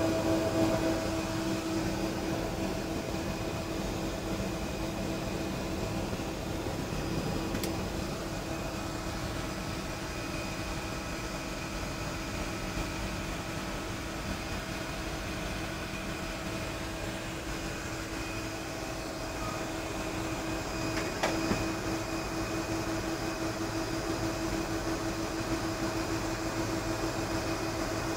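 Steady airliner cockpit noise: an even hum with several constant whining tones, and a faint click about eight seconds in.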